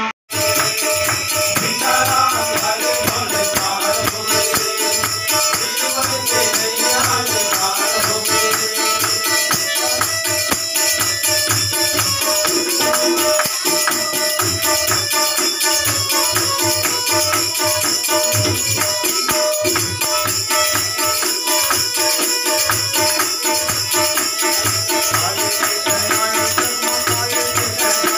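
Devotional bhajan music: a harmonium holds sustained chords while a two-headed hand drum keeps a steady beat and small hand cymbals jingle in time without a break. The sound drops out for an instant right at the start.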